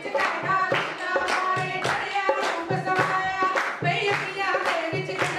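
Punjabi folk song sung by a group, with rhythmic handclaps keeping a steady beat several times a second.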